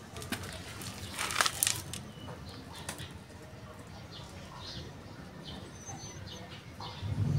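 Faint bird chirps in the background, with a brief rustle about a second and a half in.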